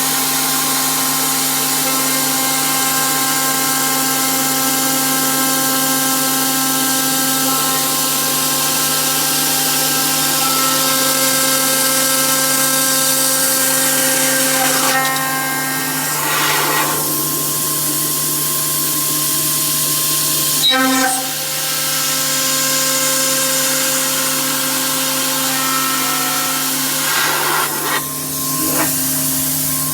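CNC machining center's spindle milling and drilling an aluminium profile: a steady high whine with cutting hiss, changing briefly a few times as the tool moves between cuts.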